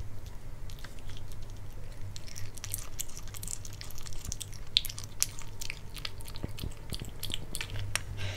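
Kitten chewing and biting pieces of raw pork close to the microphone: quick, wet clicks and smacks that come thicker from about two seconds in.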